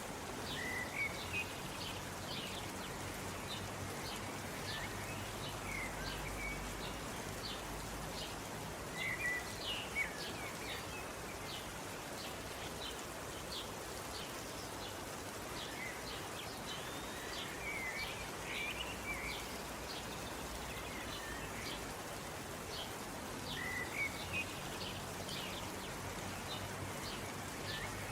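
Light rain falling steadily, with birds chirping in short clusters every few seconds.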